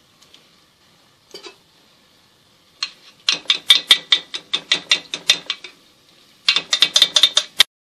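Metal spoon clicking against an aluminium frying pot in quick, evenly spaced strokes, about five a second, as hot frying oil is ladled over pieces of dough. The strokes come in two runs, and the second cuts off suddenly near the end.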